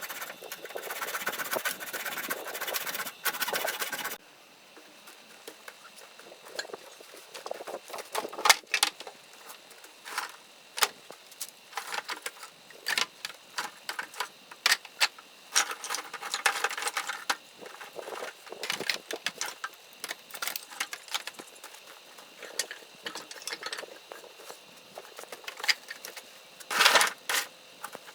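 Hand saw rasping through a dry branch of firewood for about four seconds, then stopping abruptly. After that come scattered knocks and clatters of wooden sticks being handled and set down.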